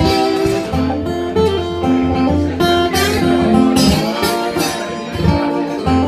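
Live band playing an instrumental passage: strummed acoustic guitar over drums and cymbals, with held notes and a steady low bass line.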